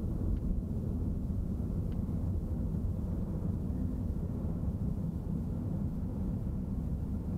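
Steady low rumble of engine and road noise heard from inside the cabin of a moving vehicle.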